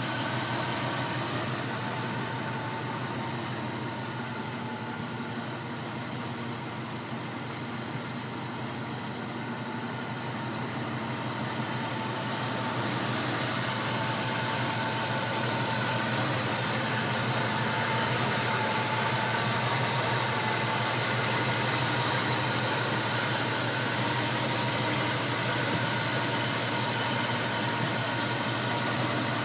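1956 Chevrolet Bel Air's engine idling steadily, getting somewhat louder about halfway through.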